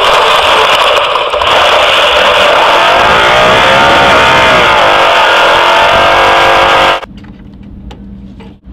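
V8 off-road race truck engine running hard under throttle, very loud and distorted with wind roar over the onboard microphone; the revs dip and climb again around the middle. About seven seconds in it cuts to a much quieter steady hum with a few sharp knocks.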